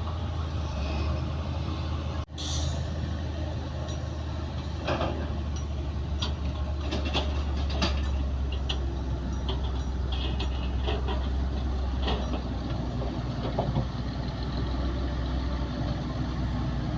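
Bulldozer's diesel engine running steadily, with scattered clanks and rattles of the tracks and blade through the middle of the stretch. The sound drops out for an instant about two seconds in.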